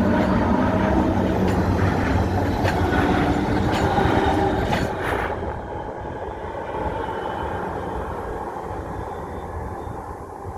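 Regional express train running over a railway bridge, steady tones over the running noise and several sharp clacks from the wheels over rail joints. About five seconds in it passes and the sound drops and fades as the train moves away.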